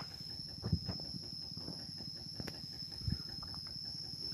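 A steady, high-pitched drone of insects, with soft footsteps squelching on a muddy track, two of them heavier thuds about a second in and about three seconds in.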